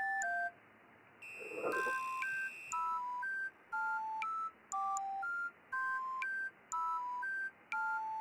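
Edited-in background music: a simple, slow melody of pure electronic beep-like tones, often two notes at once. It drops out for about a second near the start and comes back with a short added sound effect.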